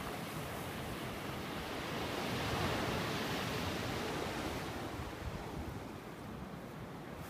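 Surf washing on the shore, with wind rumbling on the microphone. The rush swells a couple of seconds in and eases off near the end.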